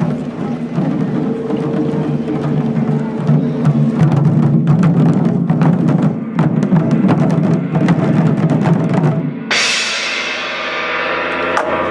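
Japanese taiko drums played in a dense, driving rhythm of deep strikes. Near the end a loud crash rings out and slowly fades.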